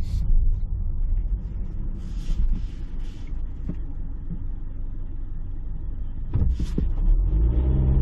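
Car driving, heard from inside the cabin: a steady low engine and road rumble, with short hissing swishes about two seconds in and again near the end. Near the end the engine note comes up as the car accelerates.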